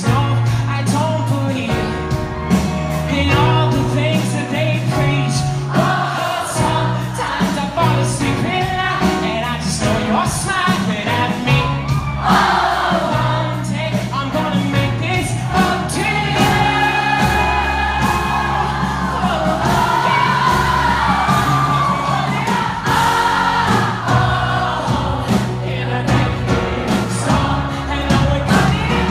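Live band music with a large crowd singing along loudly.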